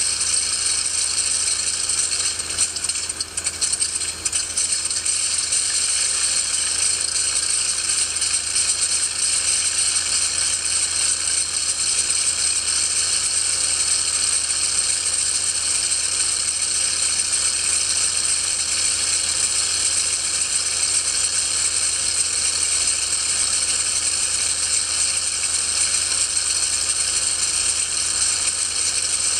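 Recorded engine sound of a Zero Type 52's Nakajima Sakae radial, played back through a small sound box built into a scale model, running steadily with a rapid clatter. It dips briefly about three seconds in.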